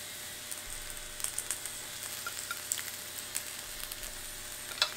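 Gyoza frying in oil on a hot electric griddle: a steady sizzle with scattered small pops and crackles, and one sharper click near the end.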